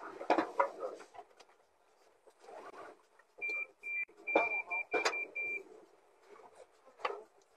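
Sharp bangs and knocks, the loudest in a cluster a little past the middle. They overlap a run of about six short electronic beeps, all at one high pitch. A muffled rumble sits underneath.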